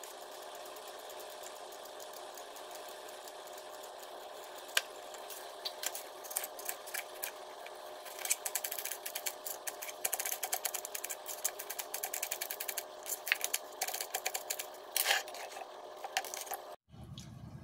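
Small kitchen knife peeling and slicing an apple on a plastic cutting board: quiet scraping at first, then quick light clicks and taps of the blade on the board, coming thick and fast through the second half. A steady hum underneath cuts off near the end.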